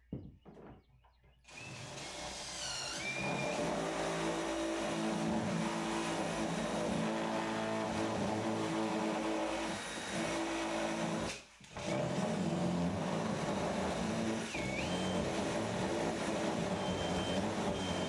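A steady mechanical hum with a few short bird chirps over it, broken off briefly about two-thirds of the way through.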